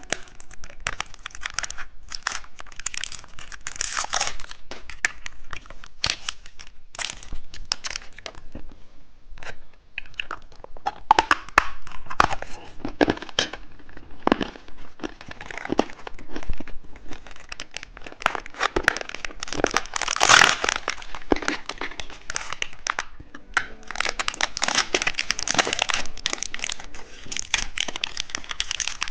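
Plastic candy wrapper being crinkled and torn open, in irregular crackling rustles that come and go.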